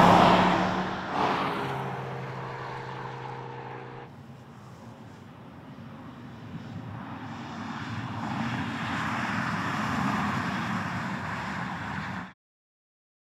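Porsche Panamera 4 E-Hybrid's twin-turbo V6 and tyres passing close by at speed, the engine note loudest at the start and then fading away. About 4 s in this gives way to a softer, even rushing that swells and then cuts off abruptly near the end.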